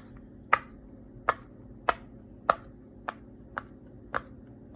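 Rainbow heart silicone pop-it fidget toy having its bubbles pressed one by one on the loud side: eight sharp pops, a little more than one a second, at an even pace.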